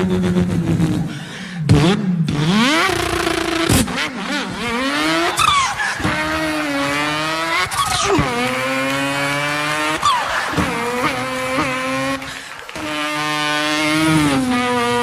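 A man imitating racing-car engines with his voice: a buzzing engine note that holds, climbs and drops in pitch as if through revs and gear changes, with brief breaks about one and a half seconds in and near the end.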